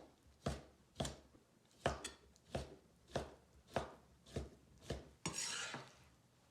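Kitchen knife slicing raw chicken breast against a cutting board, a sharp cut roughly every half second. Just past five seconds comes a longer, half-second swish.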